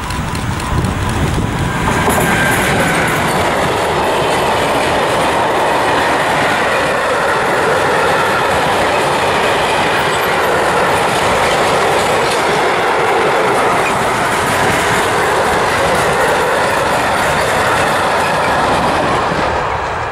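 Electric-hauled freight train passing close by: the locomotive goes by about two seconds in, then a long, steady run of covered freight wagons rolls past on the rails, the sound starting to fade near the end as the last wagons clear.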